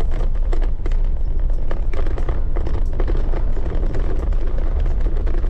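Noise of a car on the move: a loud, steady low rumble with rapid crackles running through it.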